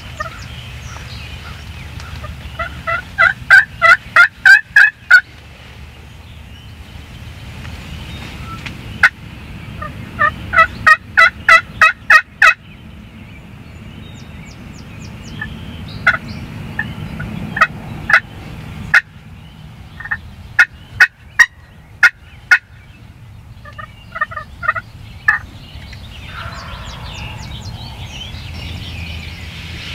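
Wild turkey hen yelping: loud runs of about seven to ten evenly spaced notes, each run a couple of seconds long, a few seconds in and again about ten seconds in, then spaced single notes and a short run near the end.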